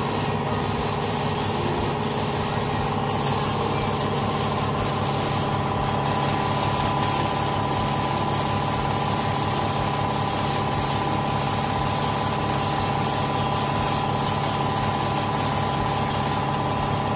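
Compressed-air spray gun hissing steadily as it sprays primer onto a car bonnet, with a steady hum underneath. The top of the hiss dips briefly now and then as the trigger eases between passes.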